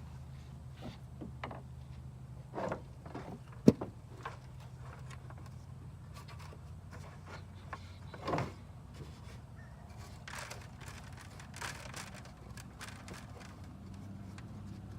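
Scattered clicks and knocks from handling the hopper and seed-plate parts of a John Deere 7300 planter, with one sharp click about four seconds in, over a low steady hum.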